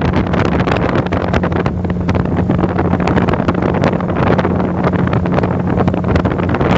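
Speedboat engine running at a steady cruising pitch while the boat moves fast over the water, with wind rushing over the microphone and frequent short buffets.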